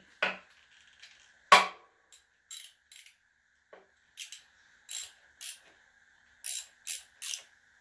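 Ratchet wrench clicking in short, uneven strokes as a 10 mm battery terminal bolt is tightened down, with one louder metallic knock about a second and a half in. A faint steady high whine sounds underneath.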